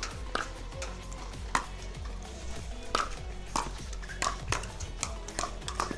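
Pickleball paddles striking the plastic ball in a fast rally: a string of sharp, hollow pops at uneven spacing, coming quicker in the second half.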